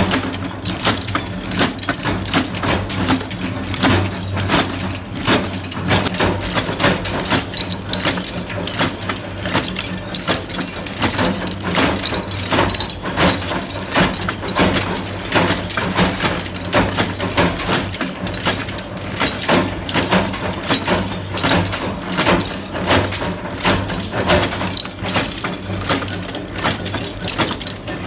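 Cam-driven automatic machine forming metal bulb-holder shells, running steadily: a fast, continuous clatter of metal clicks and clinks over a low steady hum.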